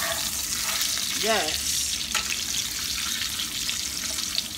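Breaded salmon fillets frying in hot grease in a pan, a steady sizzle, as they are turned with a wooden spatula, with a sharp tap about two seconds in.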